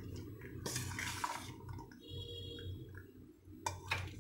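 A steel spoon stirring moist corn chaat in a stainless steel bowl, with a burst of wet scraping about a second in. Two sharp clinks of the spoon against the steel bowl near the end.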